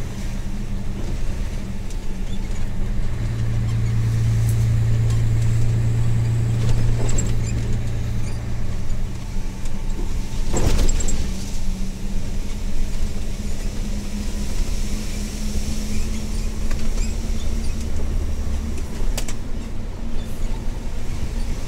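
Cab interior sound of a Mercedes-Benz Actros MP1 2643 truck under way: its V8 diesel engine running at low revs with a steady low drone, which swells for several seconds early on. A single sharp knock comes just under eleven seconds in.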